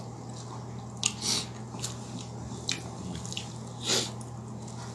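A person eating by hand: chewing, with a few short, wet mouth smacks and a louder hiss about four seconds in, over a steady low hum.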